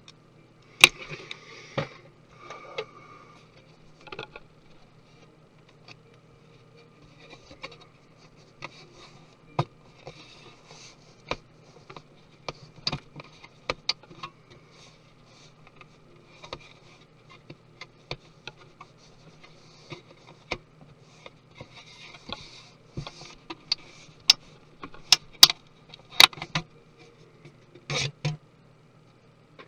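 Small hand tools and loose parts clicking, tapping and scraping on a MacBook Pro's aluminium case and internals during disassembly. The sharp clicks come at irregular intervals, with brief scrapes between them.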